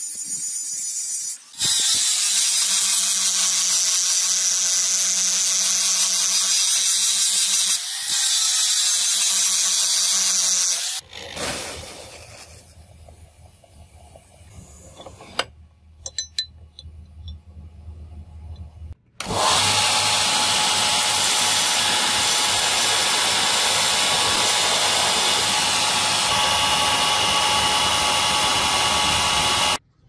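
Power grinders working a 52100 bearing-steel knife blade. Steady grinding runs for about nine seconds, then comes a quieter stretch of about eight seconds with a low motor hum and a few clicks. After that, a motor-driven sanding wheel grinds the blade steadily for about ten seconds and cuts off near the end.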